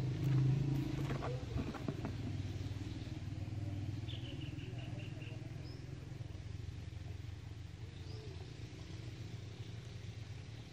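A steady low motor hum that slowly fades, with a few clicks in the first couple of seconds and a short quick series of high chirps about four seconds in.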